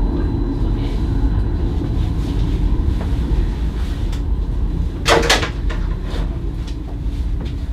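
Stadler Variobahn tram running, heard from the driver's cab as a steady low rumble. About five seconds in comes a brief double burst of hissing noise.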